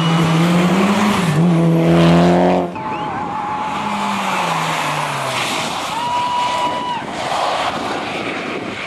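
Rally cars at speed: a Mitsubishi Lancer Evolution's engine revs hard, its note rising and falling through a bend and then climbing. After an abrupt cut about a third of the way in, a quieter second rally car passes with its engine note falling, a high squeal lasting about a second, and tyres skidding on the loose surface.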